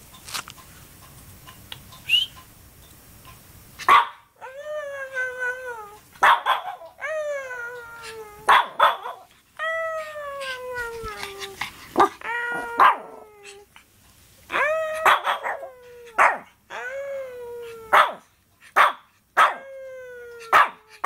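Shih tzu puppy barking: a run of drawn-out, whiny calls, each about a second long and falling in pitch, mixed with short sharp barks, starting about four seconds in.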